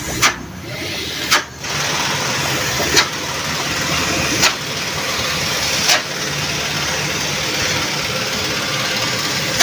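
A motor running steadily, with sharp clicks every second or two during the first six seconds.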